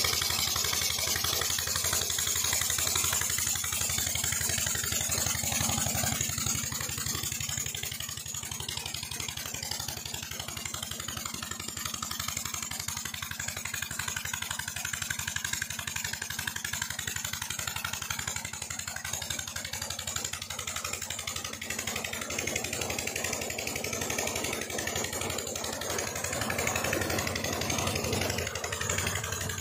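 Petter diesel engine running steadily as it drives a tube well pump, with water rushing out of the delivery pipe into a concrete tank.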